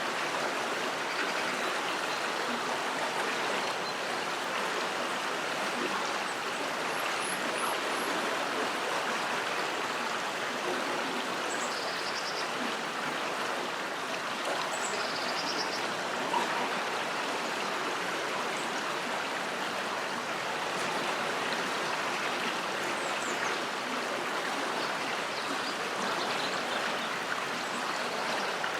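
River water flowing under a bridge: a steady, even wash of moving water.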